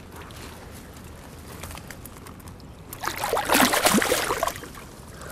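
Water splashing loudly for about a second and a half, starting about three seconds in, over a faint background of lapping water.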